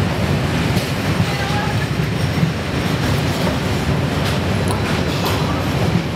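A steady low rumble with scattered light clicks and knocks.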